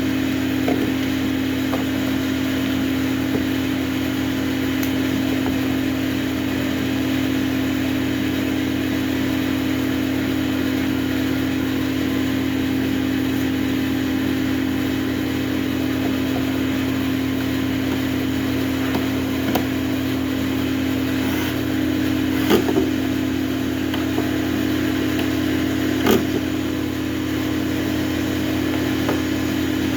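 A motor running steadily with an unchanging hum, and a few light knocks about two thirds of the way through.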